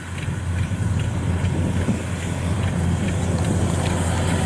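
Kubota DC95 combine harvester's diesel engine running steadily under load as the machine cuts standing rice, a continuous low drone.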